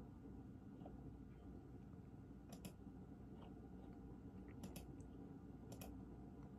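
Near silence: room tone with a few faint, short clicks, coming in pairs about two and a half, four and a half and six seconds in.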